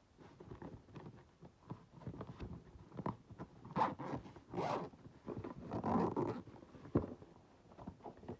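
Zipper of a small zippered carrying case being pulled open in a run of short rasping strokes, with a few louder pulls near the middle and a sharp click about seven seconds in.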